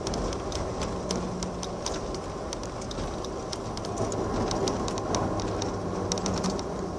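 Airliner cabin noise as the aircraft rolls on the ground: a steady engine and rolling rumble with a low hum, dotted with frequent light clicks and rattles.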